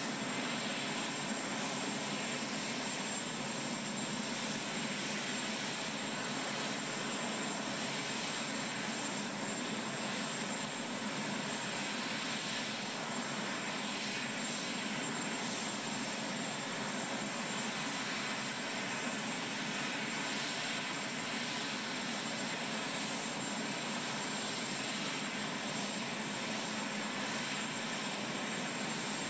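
Aircraft engines running steadily, with a constant high whine over an even rush.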